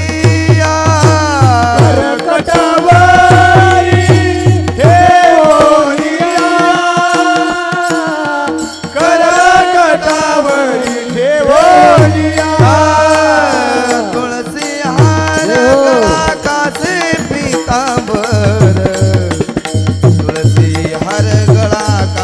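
Devotional kirtan music: a singer carries long, gliding wordless vocal lines over a steady drone and repeated hand-drum strokes. The drum drops out briefly a couple of times.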